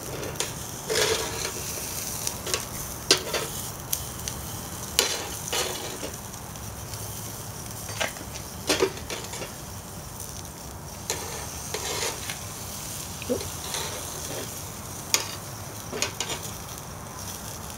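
Belgian endive halves sizzling on a hot Craycort cast iron grate over charcoal, with sharp clacks of metal tongs against the grate every second or two as the halves are turned over.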